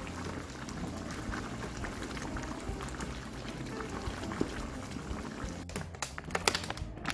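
Thick jjajang black-bean sauce bubbling in a frying pan as it is stirred with a wooden spatula, just thickened with potato starch water. A few sharp clicks come near the end.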